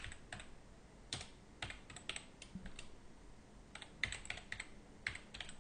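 Computer keyboard typing: quiet, irregular key clicks in short runs with brief pauses between them as an email address is entered.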